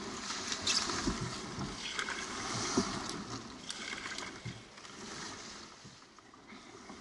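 Canoe paddling in a shallow stream: paddle strokes splashing and water sloshing in irregular bursts, dying down over the last couple of seconds.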